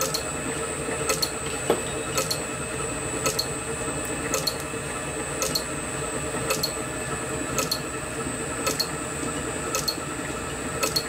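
A steady hum with a light tick about once a second.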